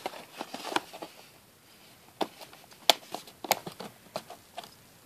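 Small scissors snipping through the clear plastic tabs that hold a doll in its cardboard box backing: a string of sharp, irregular snips and clicks.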